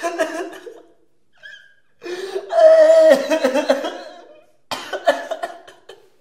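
A person crying: sobbing in bursts, with a long, loud wail in the middle. This is a ghostly voice weeping.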